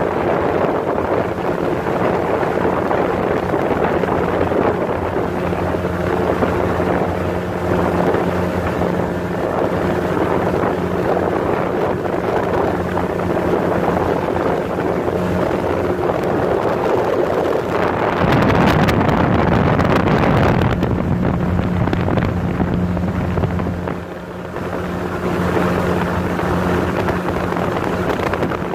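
Motorboat engine running steadily under way, with wind buffeting the microphone. A louder rushing stretch comes about two-thirds of the way through.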